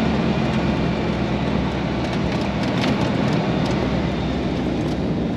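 Jeep CJ's swapped-in GM LS1 V8 running steadily under light throttle at low speed, heard from the open cabin with tyre noise from a gravel road. Its note is clean and even after the tune that leaned out its very rich fuel mixture.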